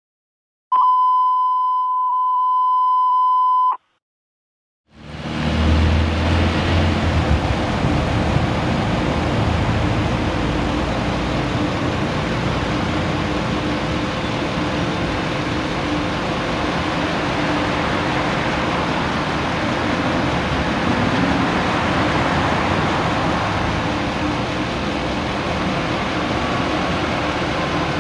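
A steady electronic beep tone lasting about three seconds, then after a second of silence, road traffic noise with vehicle engines running as a fire truck approaches with its lights on. The beep is the loudest sound.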